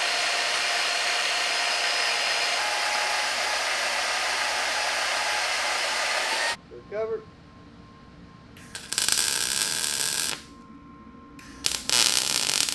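Shop power tools working steel tubing: a steady grinding hiss from the bandsaw and belt grinder that stops about six and a half seconds in, a second two-second burst a little later, and arc-welding crackle starting near the end.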